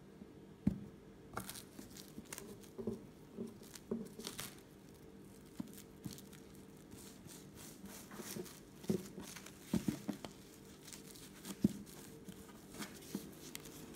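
Plastic cling film crinkling and rustling in irregular bursts as it is wrapped around a log of dough and the wrapped log is rolled on a silicone mat, with a few soft knocks of the log against the mat.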